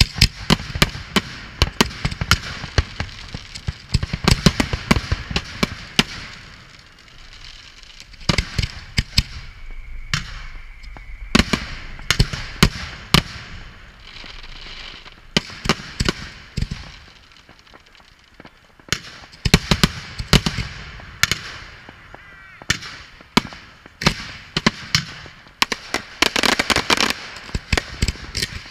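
Aerial fireworks display: a rapid, irregular series of bangs as shells are launched from the ground and burst overhead, with a short quieter spell past the middle and a dense cluster of rapid cracks near the end.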